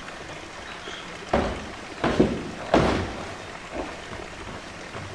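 Hollow thuds and knocks of an empty blue plastic tank being pushed and pressed by a polar bear's paws against the concrete floor: a cluster of sharp thumps between about one and a half and three seconds in, and a softer one near four seconds.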